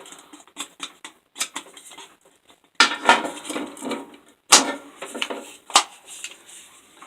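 Clinks and knocks of a disassembled Black & Decker angle grinder and its metal parts being handled: a string of separate sharp knocks, the loudest two about three and four and a half seconds in, with no motor running.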